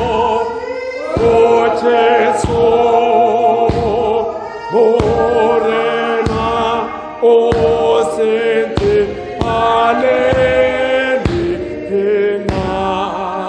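Church congregation singing a hymn together, many voices on long held notes that change in step about every second and a quarter.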